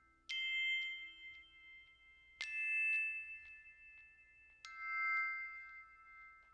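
Music: three bell-like chime notes, struck about two seconds apart, each left ringing.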